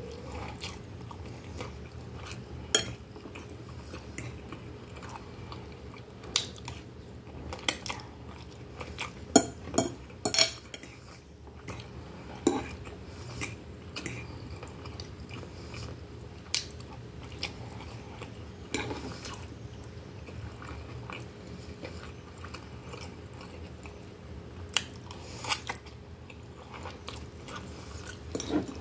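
Close-miked eating: chewing of soft, cheesy baked instant noodles, with scattered sharp clinks of a metal fork against a glass plate. A steady low hum runs underneath.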